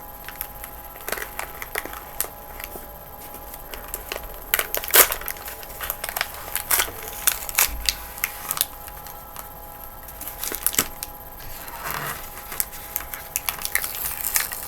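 Hard, microwave-baked cornstarch chunks crunching and cracking as they are handled and broken apart, with irregular sharp clicks and snaps. The loudest snap comes about five seconds in.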